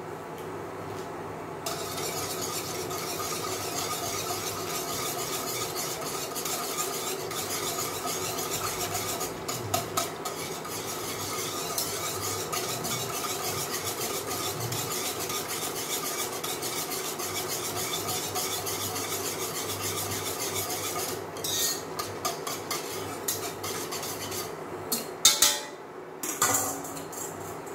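Wire whisk stirring milk in a stainless steel saucepan: a fast, steady scraping and clicking of the wires against the pan, mixing in vanilla sugar as the milk heats. It stops about three quarters of the way through, and a few separate metal knocks follow as the whisk is tapped and set down in a stainless steel bowl.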